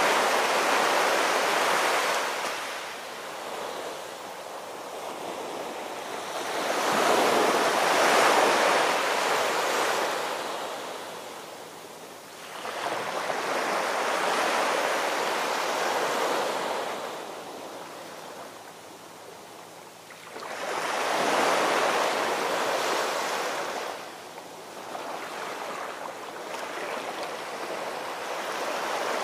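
Ocean surf washing in and receding, a rushing noise that swells and fades about every six to seven seconds.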